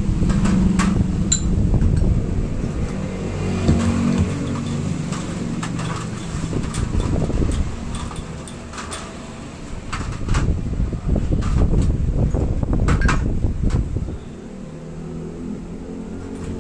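Scattered sharp clinks of steel front-shock parts and tools being handled in metal trays, over a loud low mechanical rumble that eases off near the end.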